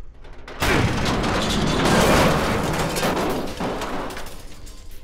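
Cartoon sound effect of a rumbling blast: it starts suddenly about half a second in, swells, and fades away over about three seconds.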